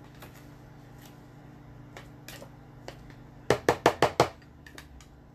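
Plastic spatula knocked against the rim of a plastic food-chopper bowl, about five sharp, quick taps some three and a half seconds in, with a few lighter clicks after.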